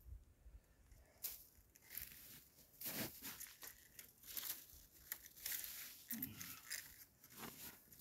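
Faint, irregular rustling, scraping and crunching of hands working at an animal carcass on snow and dry grass, tightening its tie-down.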